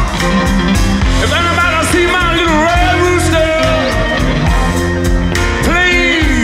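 Live rock band playing a blues on electric guitars, bass and drums, with a male lead vocal singing from about a second in and again near the end.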